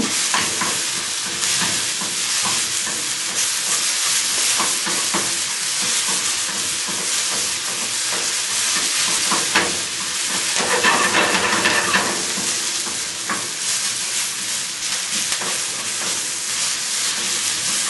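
Sliced onions sizzling in a frying pan over a gas burner, as they start to cook, with a steady hiss. They are stirred and turned with a utensil, which makes frequent scrapes and light clicks against the pan.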